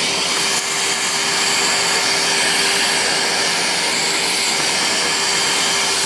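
Battery-powered vacuum cleaner running steadily: a rush of sucked air with one steady motor whine, its nozzle drawn over an amplifier chassis to clean out dust.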